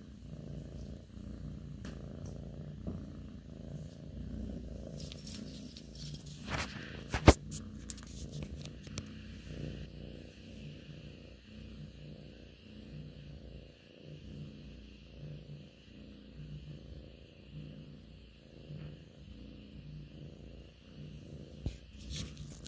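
Russian Blue cat purring, a low rumble pulsing in a slow, even rhythm. A single sharp click about a third of the way through.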